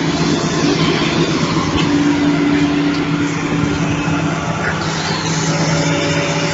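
Engine of a heavy working machine running steadily under load, with a steady low hum.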